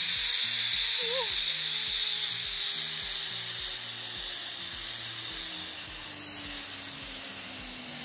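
Zipline trolley running along a steel cable: a steady hiss with a thin whine that falls slowly in pitch as the rider slows toward the landing platform.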